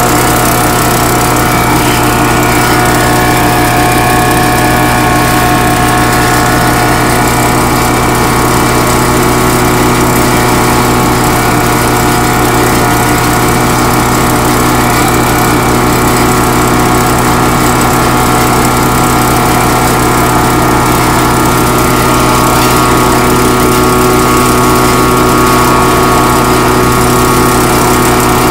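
Small engine of a portable track-welding machine running steadily at one constant speed, its pitch unchanging.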